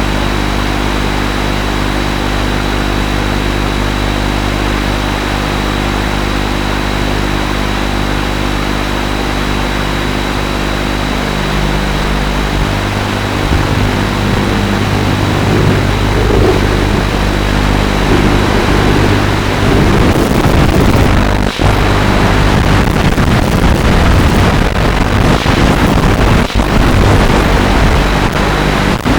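FPV drone's electric motors and propellers: a steady hum that shifts up about twelve seconds in, then rises and falls with the throttle, rougher and more uneven in the last several seconds.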